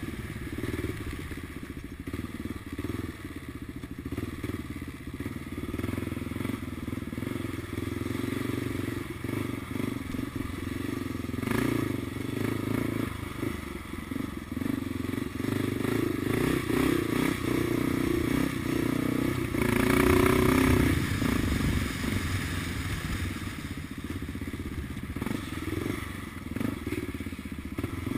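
1999 Kawasaki KLR 650's single-cylinder four-stroke engine running while the bike rides a rough dirt trail, swelling louder about twelve seconds in and again around twenty seconds. Short knocks and clatter from the bike over the bumpy ground are mixed in.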